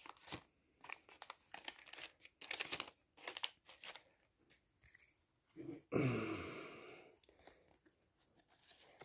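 Waxed-paper wrapper of a 1989 Fleer baseball card pack crinkling and being torn open, with trading cards handled. Short crackles come in quick runs over the first few seconds, then a longer, louder rasp about six seconds in fades away over about a second.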